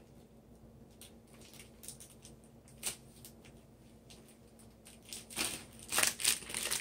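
Thin plastic bag crinkling and rustling as a raw beef steak is pushed into it, starting about five and a half seconds in and growing louder. Before that, only light handling clicks, one sharper click about three seconds in.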